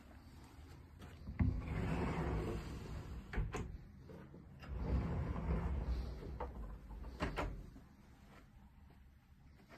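Walk-in pantry doors being opened, a latch click and then a sliding rush about a second and a half in, followed by a pull-out pantry drawer sliding out and back around five seconds in. Sharp knocks and clicks of the doors and drawer fronts come between and near the end.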